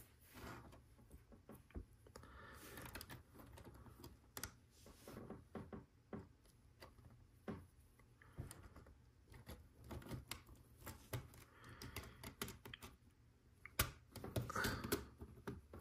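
LEGO Technic plastic pieces being handled and pressed together: faint, irregular plastic clicks and rattles, with a few louder clicks near the end as a pin is pushed into a beam.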